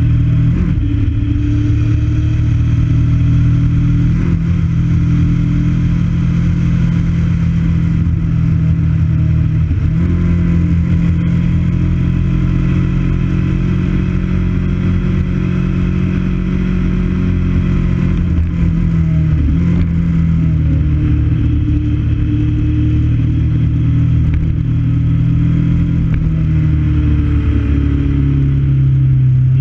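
Motorcycle engine running at road speed, its note stepping in pitch a few times as the rider changes gear, with a steady rush of wind noise over it.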